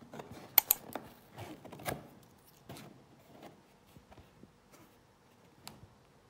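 Cardboard fried-chicken box being opened by hand: sharp snaps and rustles of cardboard and paper, mostly in the first two seconds. Lighter handling follows, with one more click near the end.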